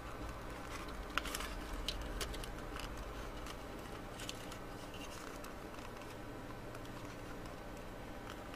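Faint rustling and a few small clicks of a wire lead and plastic robot-arm kit parts being handled, mostly in the first couple of seconds and once more around four seconds in, over a steady low hum.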